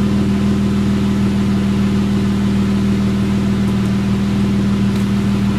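2014 Jeep Wrangler's 3.6-litre Pentastar V6 idling steadily while it warms up, heard through a newly fitted aFe 3-inch Rebel Hi-Tuck exhaust.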